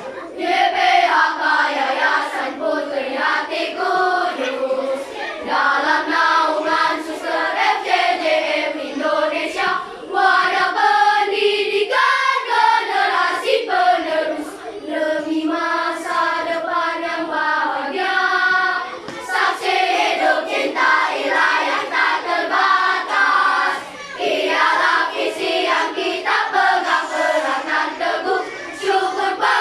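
A children's choir singing a march-style foundation anthem, phrase after phrase with short breaks between lines.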